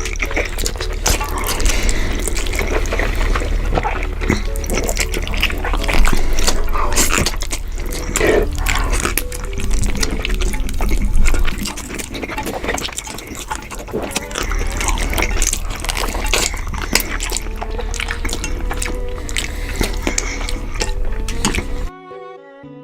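Close-miked mukbang eating sounds: wet chewing, slurping and crackly mouth clicks over a steady low hum. Soft string music begins near the end.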